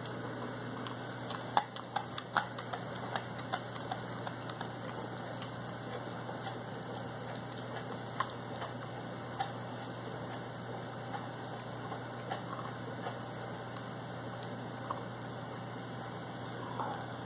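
A Carolina Dog gnawing a frozen beef knuckle bone: irregular clicks and scrapes of teeth on bone, with a flurry of louder clicks about a second and a half in, over a steady low hum.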